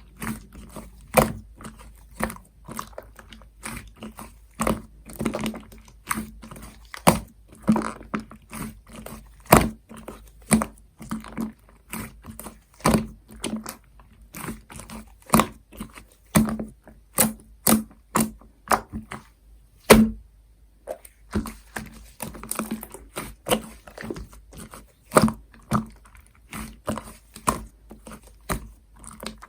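Lemon cream slime being squished and pressed by hand, giving an irregular run of sticky clicks and pops several times a second, with a short pause about two-thirds of the way through.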